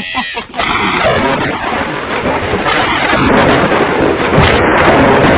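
Dramatic thunder sound effect: a loud, continuous rumble that sets in about half a second in and swells slightly toward the end.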